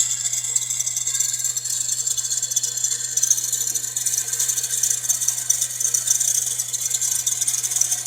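Subaru Pleo engine running with a continuous rattling, scraping noise from the belt tensioner pulley, a sign of its failing bearing, over a steady low engine hum.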